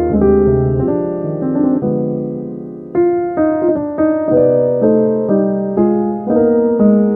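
Gentle piano music: notes and chords struck at an unhurried pace, each left to ring and fade before the next.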